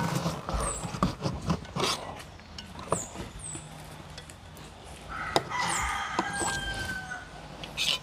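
A rooster crowing once, a long call starting about five seconds in. Short high falling chirps repeat throughout, with a few light knocks.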